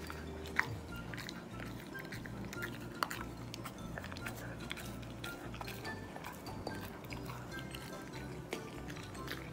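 Golden retriever chewing food with its mouth open, many quick crisp crunching clicks, over soft background music.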